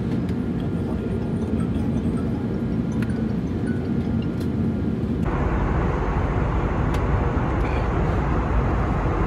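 Steady jet airliner noise: a low engine rumble, then about five seconds in an abrupt change to a brighter, fuller steady cabin roar of engines and air.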